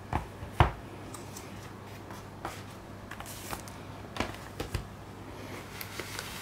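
Blu-ray slipcases being set down and slid about on a table by gloved hands: two sharp knocks in the first second, the second the louder, then lighter taps and brief sliding rustles, over a faint steady hum.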